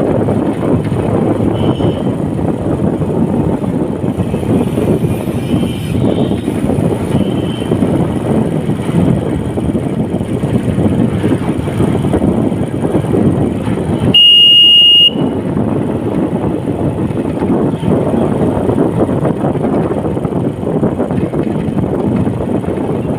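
Steady rushing wind and road noise of a moving vehicle on the microphone, with a loud, steady one-second high beep or horn tone about 14 seconds in.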